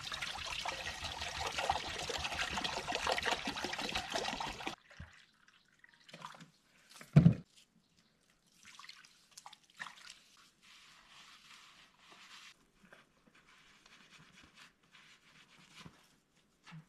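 Water pouring steadily for about five seconds, then stopping abruptly; after it come a few faint clicks and knocks, with one dull thump about seven seconds in.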